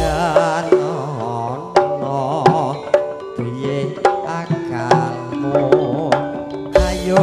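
Live campursari band playing an instrumental passage: sharp hand-drum strokes over sustained melodic lines, some with a wavering vibrato. A deep low stroke lands at the very start and again near the end.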